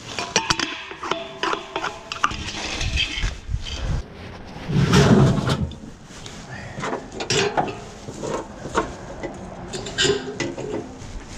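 Metal clanks, knocks and scrapes from handling a 100-pound steel propane cylinder: its metal valve cap being fitted, a louder scraping thump about halfway through as the tank goes into a pickup bed, then light clicks of a tie-down strap hook near the end.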